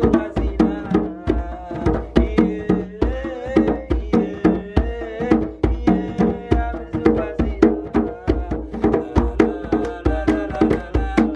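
Two hand drums, a djembe-style goblet drum and a smaller lap drum, played in a quick, steady rhythm, with a man singing over them and hand clapping near the end.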